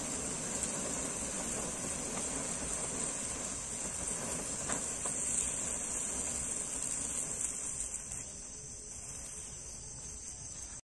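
Ground fireworks burning with a steady hiss that fades about eight seconds in, with a couple of faint pops about halfway through. A steady high chirring of crickets runs underneath.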